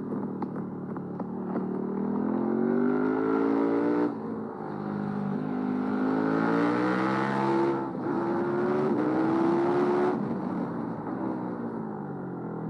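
KTM 1290 Super Duke R Gen 3's V-twin engine accelerating hard through the gears. Its pitch climbs in three pulls, broken by two quick upshifts, and a few sharp clicks sound near the start. Near the end the throttle closes and the engine note falls.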